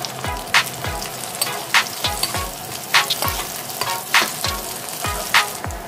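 Potato wedges and onions sizzling in hot oil in a pan. Background music with a steady beat, about one stroke every 0.6 s, is the loudest thing over the sizzle.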